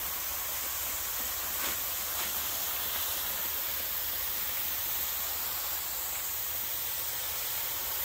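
Mist nozzles set in a black plastic water pipe, spraying a fine water mist: a steady, even hiss.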